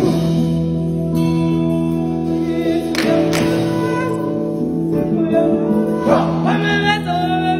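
Live stage singing: a solo voice singing out over long held notes, with a choir.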